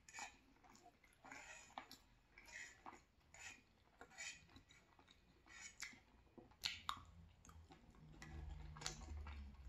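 Close-miked chewing and wet mouth sounds, soft and repeated about once a second, with a couple of sharp light clicks of a fork against the nonstick pan. A low hum comes in near the end.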